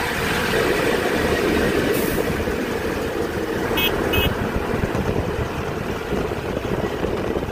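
Moving trucks on a highway heard from a truck's open cab window: steady rushing road and wind noise with engine sound. Two short high beeps sound about four seconds in.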